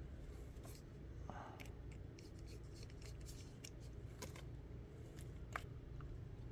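Light scattered clicks and scrapes of plastic parts as a small diaphragm bilge pump is taken apart by hand, over a low steady hum.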